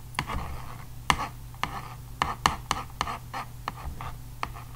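Metal palette knife scraping and tapping on a palette as it mixes black into yellow oil paint, in quick, irregular strokes, several a second.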